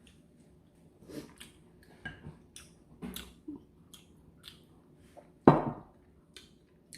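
Close-miked chewing and wet mouth noises of someone eating noodles, in small scattered clicks and squishes, with one louder sound about five and a half seconds in.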